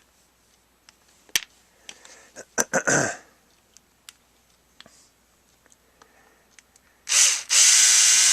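Cordless power screwdriver driving a housing screw: a short burst, then about two seconds of steady geared-motor whirring, after a few light clicks and knocks of parts being handled.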